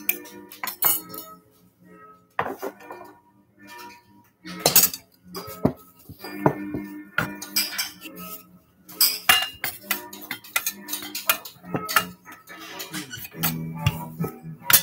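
Metal kitchen utensils clinking and clattering against each other and a work surface in irregular sharp knocks, with music playing underneath.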